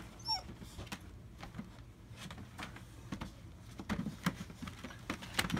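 German Shepherd puppies scuffling on a plastic wading pool floor: irregular clicks and scrapes of claws and paws on the plastic, with a brief faint squeak near the start.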